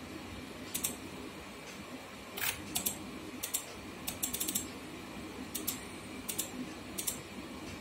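Faint, scattered clicks of a PC mouse and keyboard as a form is filled in: single clicks spaced a second or so apart, with a quick run of four or five about four seconds in.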